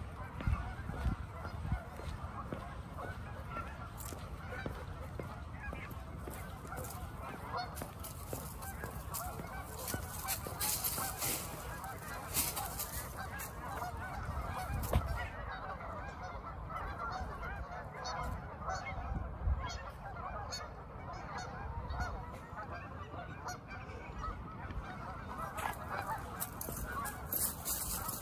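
A large flock of Canada geese on the water honking continuously, many calls overlapping.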